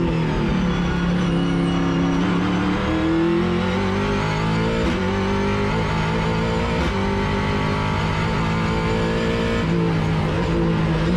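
Ford XE Falcon race car's engine heard from inside the stripped cabin, under hard driving on track, its note rising and falling again and again as the driver accelerates, changes gear and lifts off.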